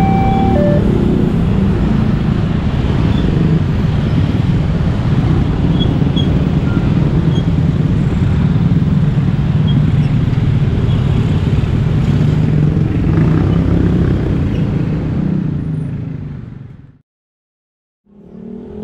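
A level-crossing warning alarm sounds two alternating tones and stops within the first second. It gives way to a steady din of many motorcycle and car engines pulling away across the tracks as the barrier lifts. The engine noise fades out a little before the end.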